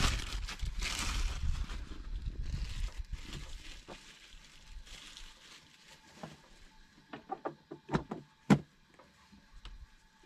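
Plastic bread bag rustling as it is handled and closed, over wind rumbling on the microphone. Then it goes quieter, and near the end come a handful of light clicks and one sharp knock.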